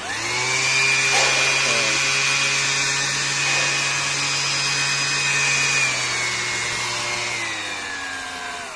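Makita DBO180 18 V cordless random orbit sander switched on: its motor spins up quickly to a steady high whine. Over the last few seconds the pitch drops in steps, in keeping with the sander being moved through its three speed settings.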